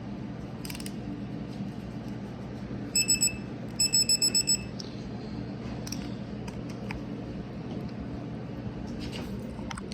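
Digital torque wrench beeping as the set torque is reached on a cylinder head stud: three quick high beeps about three seconds in, then about six more in a rapid run, over a steady low hum and a few faint clicks.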